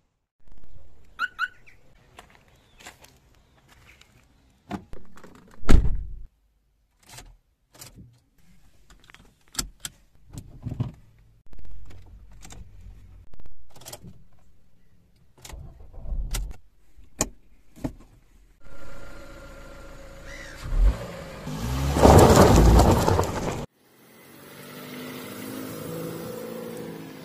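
Ford car: a short electronic chirp about a second in, then a string of clicks and thumps over the faint hum of the engine idling. From about 19 s a louder, steady run of engine noise swells around 22 s and cuts off suddenly near 24 s.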